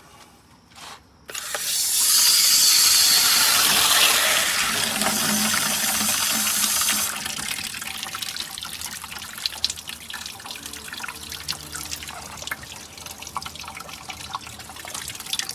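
Water running from an outdoor plastic sink's tap into its shallow basin: it starts about a second in as a strong, even rush, then drops to a lighter splashing flow with scattered drips about seven seconds in.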